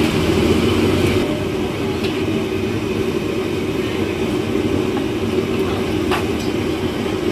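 Steady roar of the noodle stall's gas burner under a pot of boiling water, with a single short click about six seconds in.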